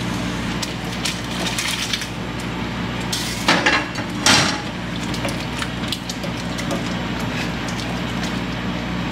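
Cooking sounds: a utensil clinking, knocking and scraping against a pan of pasta in sauce, with two louder knocks about halfway through, over a steady low hum.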